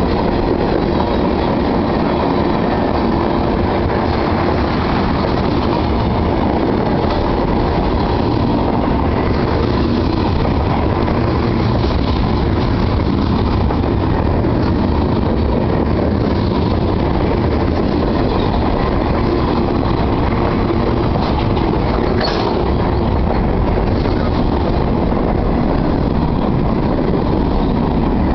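Freight train cars rolling past at close range: a steady, loud rumble of steel wheels on the rails, with a brief high squeal about three-quarters of the way through.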